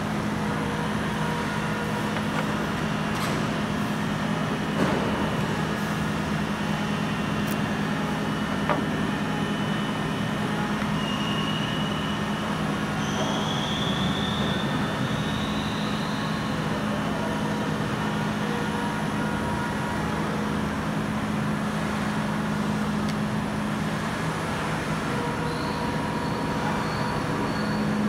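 Steady machinery hum with a rushing noise underneath, and a couple of sharp clicks.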